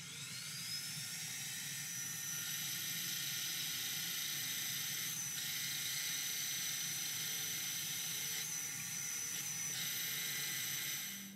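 Benchtop mini mill's motor spinning up with a rising whine, then running steadily as a 1 1/2-inch Forstner bit bores into a butcher-block guitar body blank, the whine dipping slightly under load a few times. It stops near the end.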